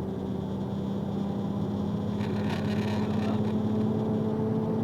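Box truck running, heard from inside the cab: a steady engine hum whose pitch creeps slightly upward, with a short burst of hiss about halfway through.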